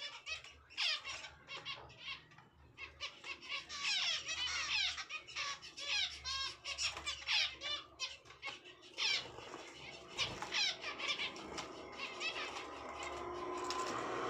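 Zebra finches, young birds among them, chirping in quick high calls, often several close together. A steady noise grows louder over the last couple of seconds.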